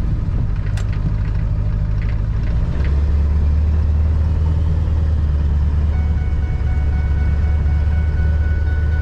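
Ford 7.3-litre diesel truck engine running; about three seconds in its low drone deepens and gets louder, and a thin steady whine comes in from about six seconds in.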